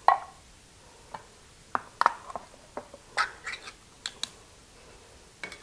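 Light knocks and clicks of metal soup cans being handled and set down on a wooden cutting board, with a sharp knock at the start and a dozen or so smaller clicks after.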